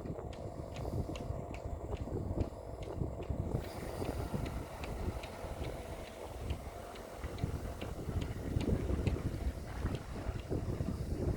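Wind buffeting the microphone, with faint, regular ticking about two to three times a second.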